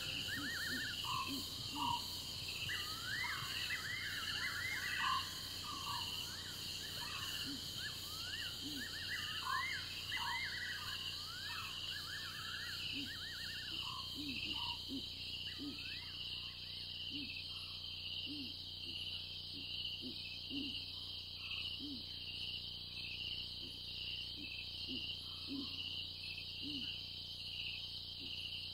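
Dusk or night savanna ambience: a steady chorus of insects such as crickets, with many quick chirping bird calls in roughly the first half. Short low calls repeat every second or two from about a third of the way in.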